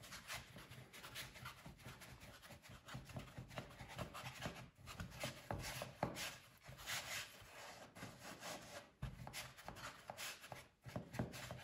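Palms rolling a rope of soft egg dough back and forth on a floured wooden pastry board: faint, repeated rubbing strokes.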